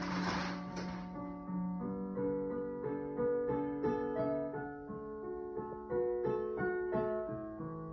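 Digital piano playing a slow piece, held notes overlapping, with a rustle of sheet music as a page is turned in the first second.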